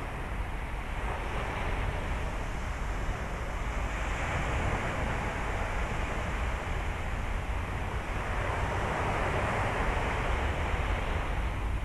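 Surf washing up a beach, a steady hiss that swells about four seconds in and again near the end, over a low rumble of wind on the microphone.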